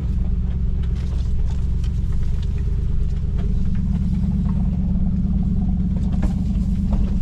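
Lexus GX470's V8 engine running at low speed on a rough trail. Its steady low drone grows stronger about halfway through, and scattered light knocks and scrapes can be heard over it.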